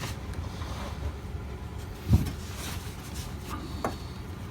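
Hand tools being handled while a wrench is fitted to a hose fitting: one dull knock about two seconds in and a few faint clicks, over a low steady rumble.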